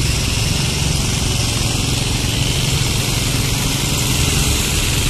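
Steady road-traffic noise from car and motorcycle engines running and idling, with no crossing bell or train.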